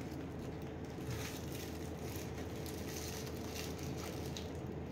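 Foil wrapper being unwrapped by hand, crinkling softly in a few short rustles over a faint steady hum.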